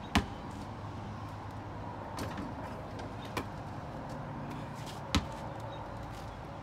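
Basketball bouncing on a concrete driveway: a few separate sharp thuds, the loudest just after the start and another about five seconds in, with fainter knocks between.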